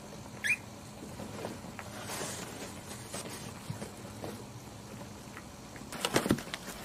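Small puppies scuffling and scrabbling on towel and blanket as they play with a toy: soft rustles and light clicks, a brief high squeak that falls in pitch about half a second in, and a quick cluster of knocks and scrabbling near the end.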